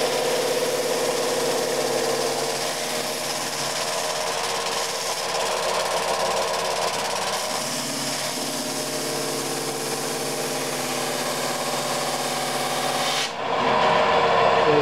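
Homemade drum sander driven by a small 80 W electric motor, running with a steady hum while a wooden board is fed under the sandpaper drum, with the hiss of sanding over it. The motor is far too weak for the job and only barely gets up to speed. About thirteen seconds in, the hiss cuts off suddenly and the hum grows louder.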